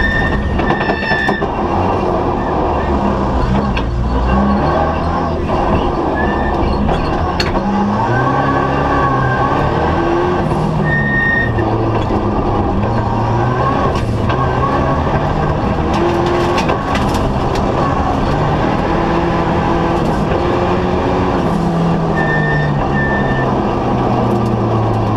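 Volvo 240 Turbo's turbocharged four-cylinder engine heard from inside the rally car's cabin, revving up and dropping back again and again as the car accelerates and lets off through a tight course.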